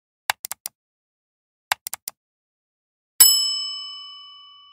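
Subscribe-button sound effects: two quick clusters of four mouse clicks each, then a single bright bell ding about three seconds in that rings on with several tones and fades slowly.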